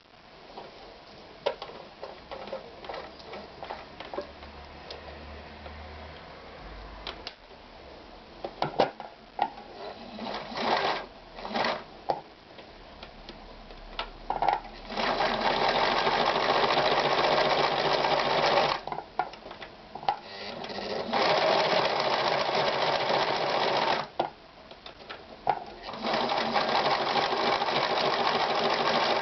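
Victoria 739 sewing machine being tested. It starts with scattered clicks and a few short bursts, then sews in three steady runs of a few seconds each, stopping briefly between them.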